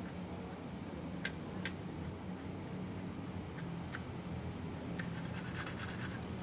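Small hard parts and tools being handled: a few sharp clicks, then a quick run of light ticking about five seconds in, over a steady low hum.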